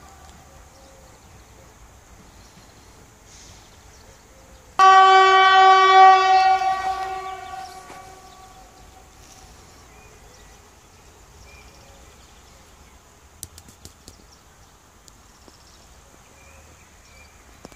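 Horn of a departing Hyundai Rotem electric train: one long blast on a single steady note, about two seconds, that starts abruptly and then fades away over the next second or so.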